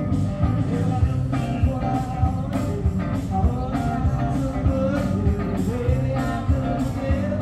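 Live band playing through a PA: electric guitars, bass and drums keeping a steady beat, with a voice singing.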